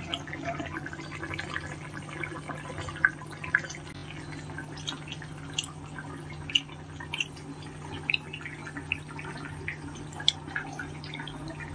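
Thick matar paneer gravy boiling in a pan on a gas stove, with irregular pops of bursting bubbles over a steady low hum.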